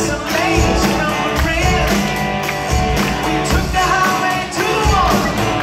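Live rock band playing a song with a male lead singer, electric guitars and a drum kit, heard from among the theatre audience through a phone's microphone.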